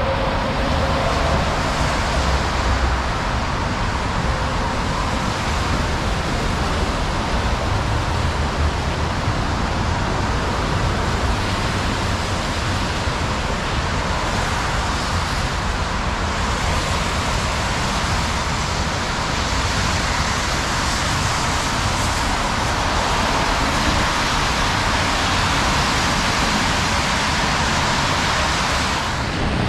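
Steady hiss of rain mixed with traffic noise from vehicles on wet streets.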